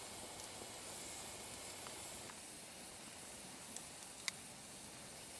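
Faint steady hiss, with a wooden spoon stirring loose-leaf tea in a steel billy pot: a light tick a little before four seconds, then one sharp click just after.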